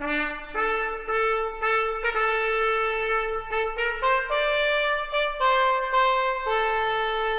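Background music: a brass instrument, most like a trumpet, playing a slow melody of long held notes.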